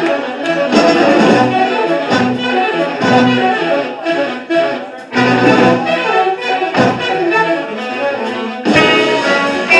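Live big band playing a jazz-rock arrangement: saxophones and brass over electric bass, guitar, keyboards and drums.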